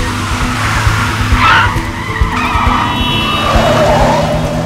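Sports cars' engines running hard while tyres squeal in a skid, the squeal starting about a second and a half in and falling in pitch toward the end.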